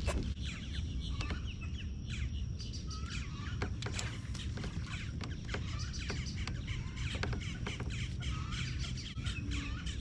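Several birds chirping and calling throughout, with scattered sharp clicks and a steady low rumble underneath.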